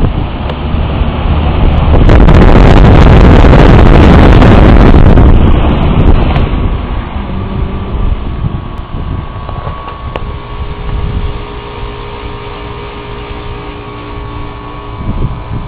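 Lennox heat pump outdoor unit running, its three-blade condenser fan blowing with a steady hum. From about two to six seconds in, a very loud rush of air buffets the microphone, then the steady running noise settles.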